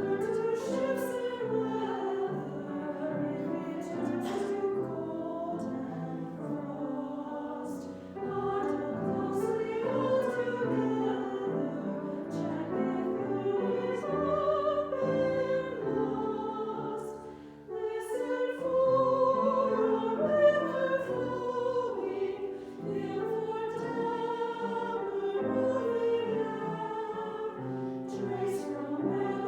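Church choir singing a classical anthem in several parts, with a brief drop in loudness between phrases about seventeen seconds in.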